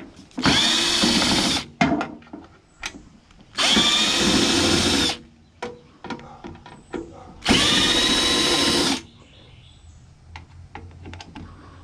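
Power drill spinning a driver bit in three bursts of about a second and a half each, backing screws out of a microwave oven's casing, with small clicks and knocks of handling between the bursts.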